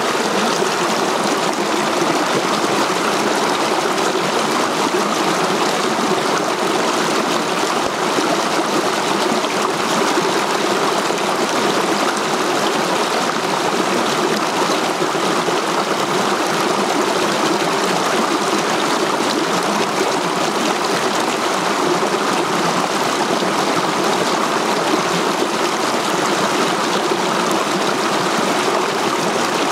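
Shallow mountain river rushing over boulders in small rapids and cascades, a steady, even noise of running water.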